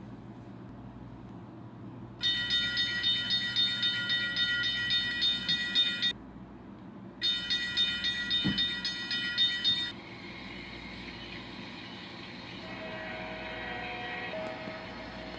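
Freight train horn sounding two long blasts, a chord of several steady tones, over the steady rumble of a passing train. Near the end, fainter sustained tones join the rumble.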